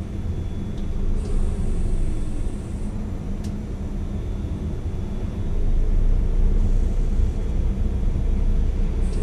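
Tower crane machinery running as a steady low rumble and hum, with a faint high whine early on, growing louder about six seconds in.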